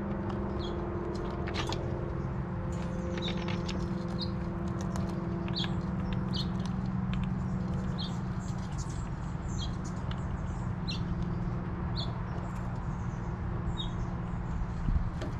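Ground squirrels chewing walnuts and sunflower seeds close to the microphone, with sharp crunchy clicks that come thickest in the first few seconds. Short high bird chirps come about once a second, over a steady low hum.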